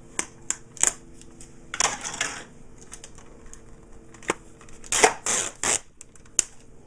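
Plastic clicks, rattles and scraping from a laser-printer toner cartridge being handled while its shipping tab is pulled off. Scattered sharp clicks, with a longer scrape about two seconds in and a louder cluster of scrapes about five seconds in.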